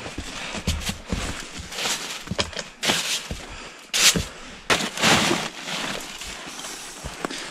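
Boots crunching and scuffing through snow over loose stones, a boot kicking at snow-covered litter, in several irregular crunches, the loudest about four seconds in.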